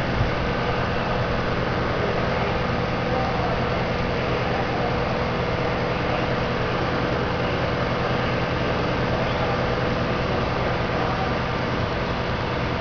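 Steady machinery drone: a constant low hum under an even hiss, with no change in pitch or level.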